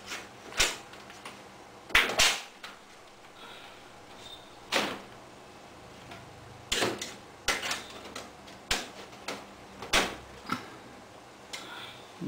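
Thin PVC ceiling tiles knocking and clattering against a suspended ceiling grid as they are pushed up and seated by hand: about a dozen sharp, irregular clacks.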